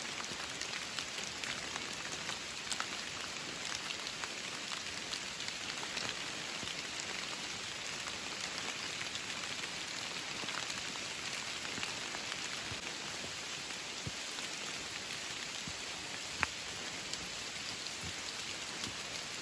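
Steady rain falling: an even hiss with many individual drops ticking through it, and one sharper drop near the end.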